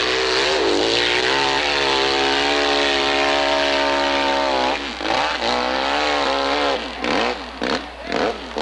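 Hillclimb dirt bike engine driving the bike up a steep dirt slope. The revs rise in the first second and a half and hold high and steady for about three seconds. They drop and waver about five seconds in, then break into short choppy bursts near the end as the throttle comes on and off.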